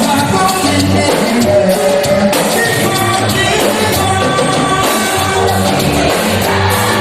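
A choir sings a praise song over a live band, with a steady beat of bass notes and drums. The music is loud and continuous.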